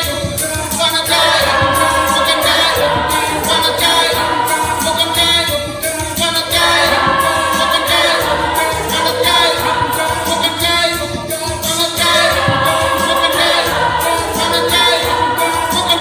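A church choir singing, its phrases breaking off briefly about every five seconds.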